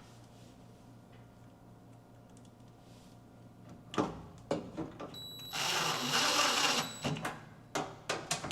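Cordless screw gun briefly driving a screw to fasten a microwave's blower fan in place, a run of about a second and a half, with clicks and knocks of handling the fan and screws before and after.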